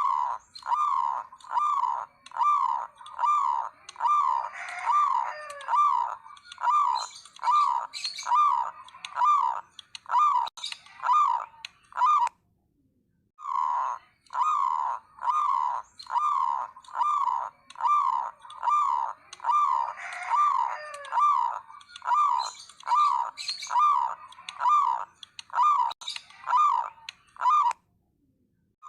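Zebra doves (perkutut) cooing in the nguwor style, a fast run of short rolling notes at about two a second, breaking off for about a second midway before starting again. It is a lure recording meant to set other perkutut singing.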